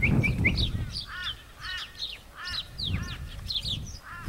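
A group of birds calling and chattering: many short, overlapping squawks and chirps repeated rapidly, with a low rumbling noise underneath.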